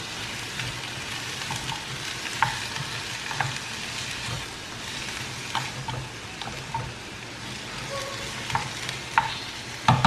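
Cauliflower florets sizzling in hot oil in a kadai while being tossed and stirred with a wooden spatula. Scattered light knocks of the spatula against the pan, a few close together near the end.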